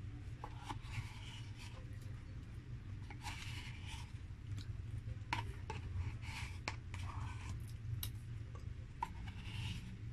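Close-up eating sounds: a paper cup is handled and tipped to the mouth, with soft rubbing and scraping and scattered small clicks over a low steady hum.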